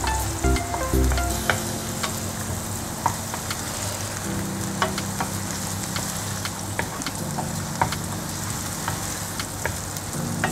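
Chopped onions frying in oil in a pan: a steady sizzle with scattered crackles and pops, while a wooden spatula stirs them around the pan.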